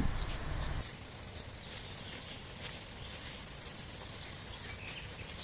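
A high, rapidly pulsing insect trill starting about a second in and lasting about a second and a half, over faint open-air ambience.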